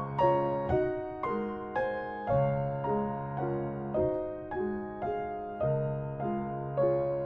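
Slow, gentle piano music: single notes struck about twice a second, each fading away, over held low notes that change every few seconds.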